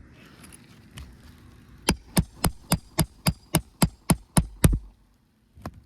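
Roofing hammer striking on the roof in a quick, even series of about eleven sharp blows, roughly four a second, then one softer knock near the end.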